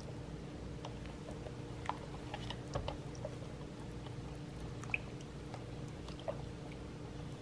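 Faint water sloshing and dripping as hands rub and turn fruit in a bowl of water, with scattered small splashes and clicks.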